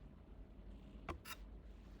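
Faint clicks from toy packaging being handled: two quick ones close together about a second in.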